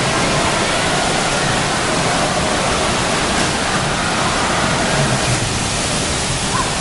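Steady rush of water pouring and spraying down from water-park play fountains onto a shallow splash pool.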